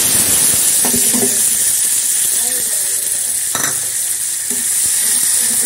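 Sliced onions frying in hot oil in a pan, a steady loud sizzle: the onion tadka (tempering) for dal. A short knock about three and a half seconds in.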